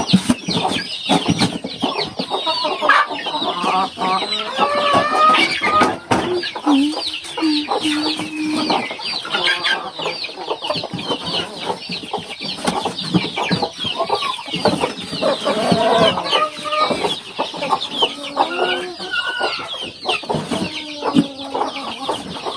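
Chickens calling: a continuous chorus of high, rapid peeps, with lower clucking calls now and then and the rustle of cardboard and string being handled.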